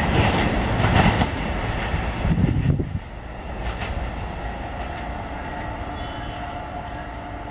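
Passenger multiple-unit train running along the track and moving away. Loud wheel-on-rail rumble for about the first three seconds, then it drops to a steadier, quieter running noise as the train recedes.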